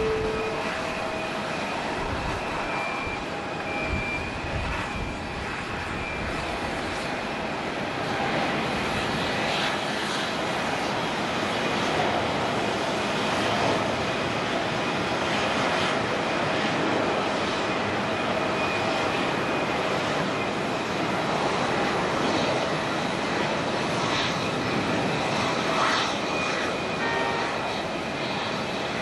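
Japan Airlines Boeing 787-9's twin GEnx turbofans at takeoff power through the takeoff roll, liftoff and climb-out: a steady jet roar with a faint high whine, growing a little louder about a third of the way through.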